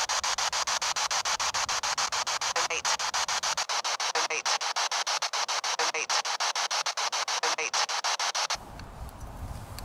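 Spirit box sweeping through radio stations: harsh static chopped into rapid pulses, about eight a second. A short fragment recurs roughly every second and a half as an EVP is replayed. The sweep cuts off suddenly near the end, leaving light wind noise on the microphone.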